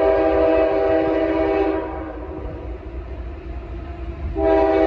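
CSX freight locomotive's air horn sounding for a grade crossing: one long blast of about two seconds made of several pitches at once, then a second blast starting near the end.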